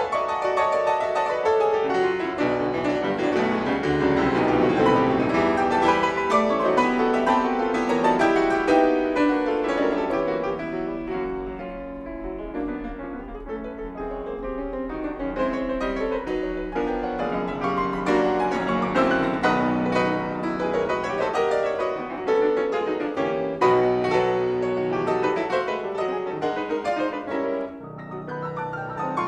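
Two grand pianos playing together: a fugue marked Allegro risoluto, with dense, busy lines. The playing thins and softens a little before halfway, then builds again.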